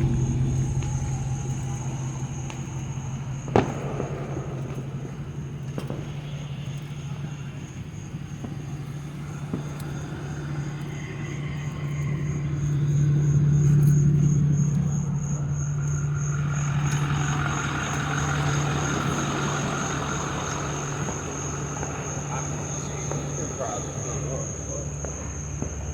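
A steady low engine-like hum that swells and fades around the middle, with a single sharp pop about three and a half seconds in and a thin high steady whine over it.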